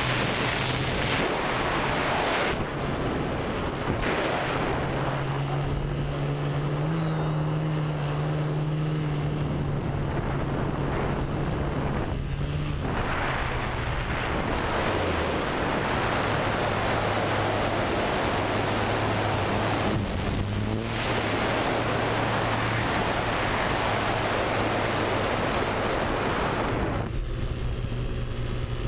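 TBS Discovery Pro quadcopter's brushless motors and propellers humming in flight under heavy wind rush on the onboard microphone, the motor tone stepping up and down in pitch several times as the throttle changes.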